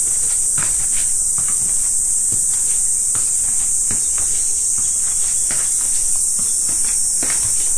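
Summer cicada chorus: a loud, steady, high-pitched buzz that never breaks, with faint scattered knocks underneath.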